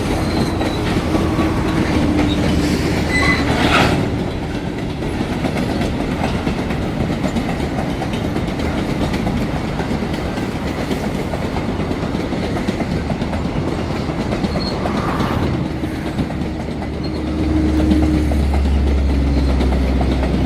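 FEPASA freight train rolling past, its steel wagon wheels running on the rails, with a deep low rumble that grows louder near the end.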